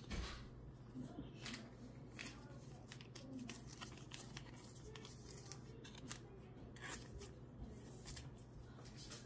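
Trading cards being handled: faint rustling and scattered light clicks as a card is slid into a soft plastic penny sleeve.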